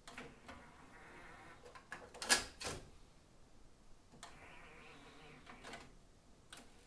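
Denon DRS-610 cassette deck's motorized horizontal loading mechanism: a small motor whirs as the cassette door opens, with sharp mechanical clicks, the loudest a little over two seconds in, then whirs again as the door closes and ends in clicks. A button click comes near the end.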